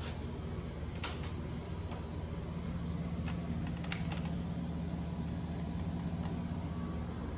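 O gauge model trains running on three-rail track: a steady low hum and rumble, with a few sharp clicks through it.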